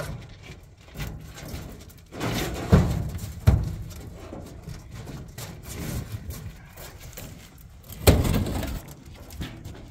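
Hollow concrete blocks knocking and scraping as they are lifted and set down on a steel truck bed. Sharp thuds come just under three seconds in, again half a second later, and once more near the end.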